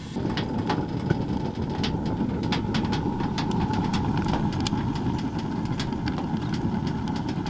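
Wood fire burning hard inside a Winnerwell Fastfold titanium camping stove: a steady low rumble of the draft with frequent sharp crackles and pops from the burning twigs.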